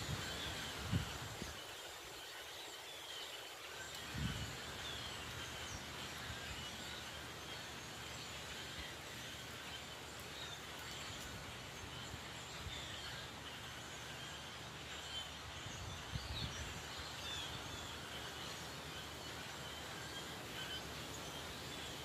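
Faint chatter of a large flock of blackbirds up in the treetops, many small chirps over a steady background hiss, with a few low bumps.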